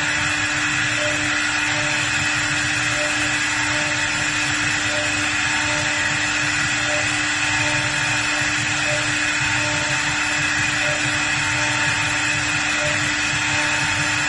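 CNC wood lathe at work: a high-speed router spindle carves a spiral into a slowly turning wooden spindle. It gives a steady machine whine over the even noise of the bit cutting wood.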